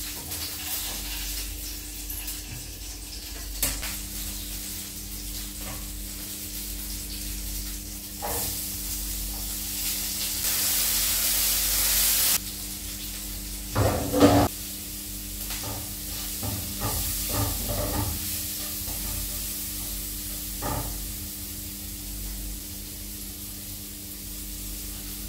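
Spices tempering in hot oil: nigella seeds and green chillies sizzling in the pan with a steady hiss. The sizzle swells to a loud hiss for about two seconds around ten seconds in, and a few metal clanks of a utensil against the pan follow a couple of seconds later, over a steady low hum.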